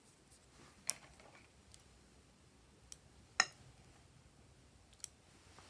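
Four short, sharp clicks of small hard objects being handled, the loudest about three and a half seconds in, as bead and glitter toppings are added to a glass bowl of slime.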